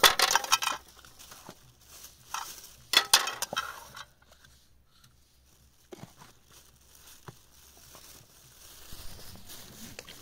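Three short bursts of crunching, crackling noise in the first four seconds, then a couple of faint knocks.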